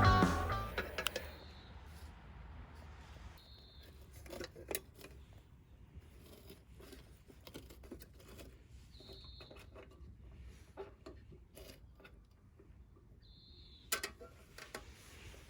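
Faint scattered clicks and taps of small objects being handled over a steady low rumble, with four brief high chirps spread through; guitar background music fades out at the start.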